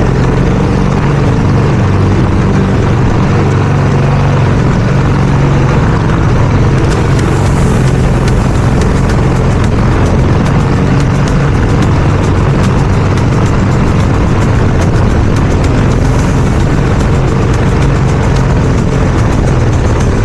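Gasoline lawn mower engine running steadily under load while cutting thick, overgrown grass.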